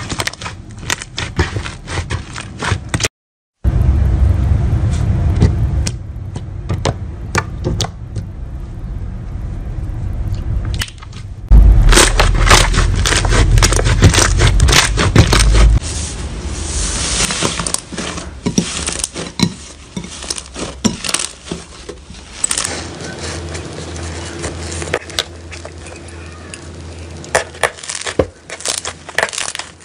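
Slime being squished, stretched and pressed by hand, with dense sticky crackling and popping clicks. The texture changes abruptly several times, with a brief gap about three seconds in.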